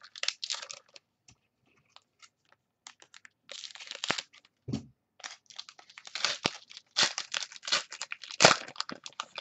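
Wrapper of a Contenders football card pack being torn and crinkled open by hand: irregular crackling tears in two clusters, with one sharp loud snap near the end.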